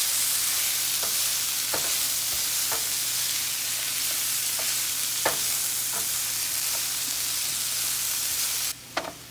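Sliced bell peppers and onions sizzling in olive oil in a nonstick pan, stirred with a wooden spoon that knocks and scrapes against the pan every second or so. The sizzle cuts off abruptly near the end.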